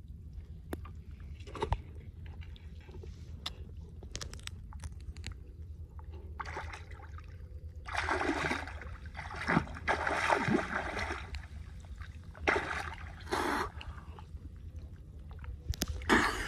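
Shallow seawater splashing and sloshing as hands dig into a flooded crab burrow. It comes in bursts and is loudest from about eight to eleven seconds in.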